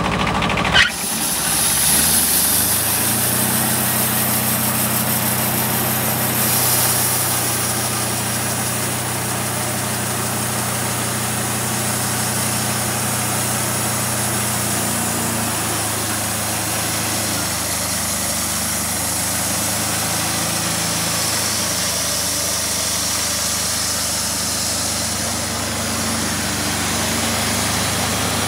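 Wood-Mizer LT15 bandsaw sawmill running under load: its engine drones steadily while the band blade cuts through a log with a constant hiss. A single sharp clack just under a second in, after which the engine's pitch dips and settles.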